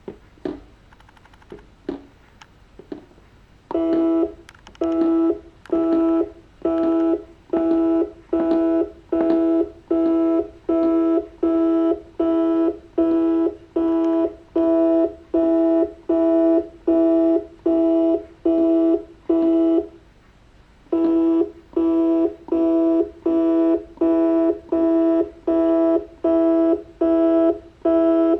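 Stepper motor of an Arduino-driven rotary table indexing in a long run of short moves: a steady pitched whine that starts and stops about once every 0.7 seconds, with a pause of about a second two-thirds of the way through. A few brief blips come before the moves begin, about four seconds in.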